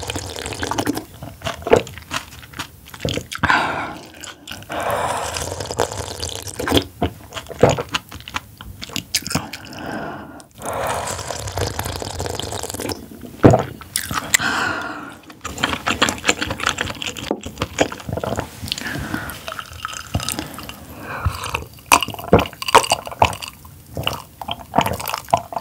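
Close-miked eating sounds: wet chewing and liquid sounds from eating squid-innards soup, with many irregular sharp clicks.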